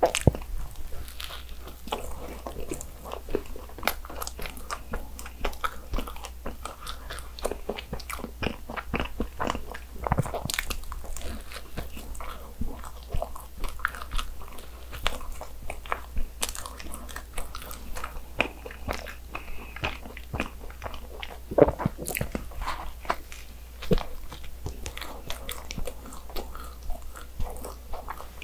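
Close-miked biting and chewing of a soft, sugar-dusted donut and cream-filled pastry, with many small, sharp wet mouth clicks.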